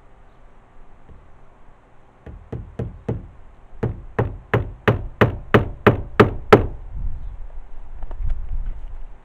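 Hammer driving nails through bitumen roofing felt into a wooden roof. About a dozen sharp blows, roughly three a second and growing louder, start a couple of seconds in and stop about two-thirds of the way through.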